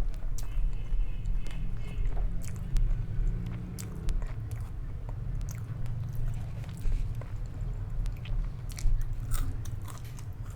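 A person chewing and biting food close to the microphone, with irregular crunchy bites and wet mouth clicks.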